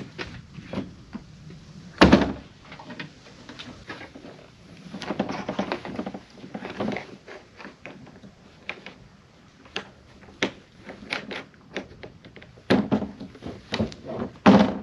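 Hard tonneau cover on a pickup bed being lifted and folded open: a loud thunk about two seconds in, a longer stretch of scraping and rattling from the panels, then a string of knocks and another loud thunk near the end.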